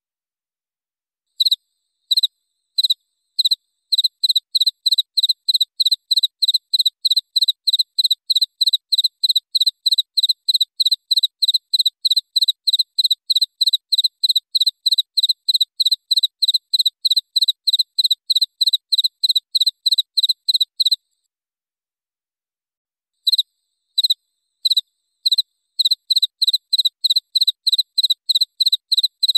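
A cricket chirping in clear, evenly spaced chirps, about three a second. The chirps start slowly a second or so in and break off about two-thirds of the way through. After a short gap they start again slowly and pick up pace near the end.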